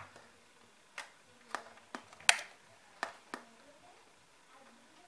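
About six sharp plastic clicks and knocks from handling a small portable MP3 player/speaker while a USB pin is plugged into it and its controls are worked; the loudest click comes a little past two seconds in.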